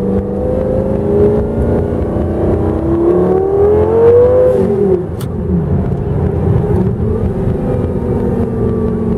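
Heffner twin-turbo Lamborghini Gallardo V10 heard from inside the cabin: it pulls with rising revs for a couple of seconds, loudest about four seconds in. The revs drop off sharply near five seconds, and it then runs steadily at cruising speed.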